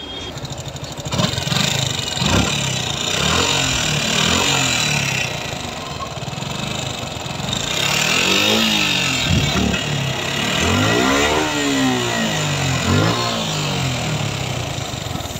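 Suzuki Gixxer FI ABS single-cylinder engine running and revved in several throttle blips that rise and fall in pitch. The engine makes an abnormal noise, which the mechanic traces to a failed rocker arm and an over-tight exhaust valve adjuster.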